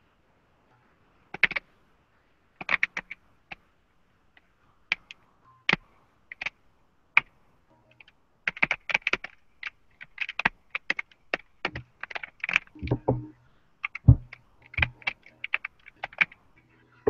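Typing on a computer keyboard: a few scattered keystrokes at first, then quicker runs of typing from about halfway through.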